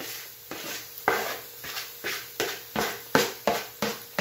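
Spoon beating bean batter for akara in a plastic bowl: a steady run of sharp strokes, nearly three a second, each one a quick tap of the spoon against the bowl.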